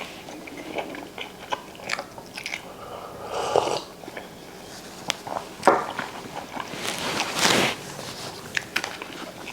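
A person chewing and eating close to the microphone: irregular small clicks and crunches, with a few short noisy bursts.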